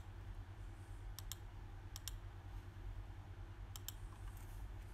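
Computer mouse clicking: three quick pairs of clicks spread over a few seconds, over a faint steady low hum.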